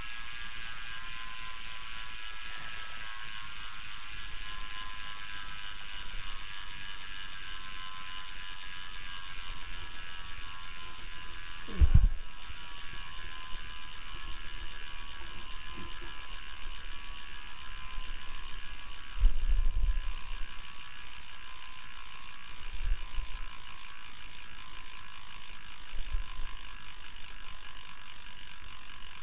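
Williams Cycling bicycle wheel coasting down from speed, its freehub pawls clicking so fast they run together into a steady ratcheting buzz that slowly drops in pitch as the wheel loses speed. A few dull thumps stand out, the loudest about twelve seconds in and again near twenty.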